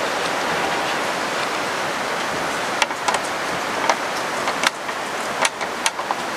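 Steady rushing hiss of strong wind outdoors. About three seconds in, it is joined by a scattering of small sharp clicks, roughly seven or eight, spread over the last few seconds.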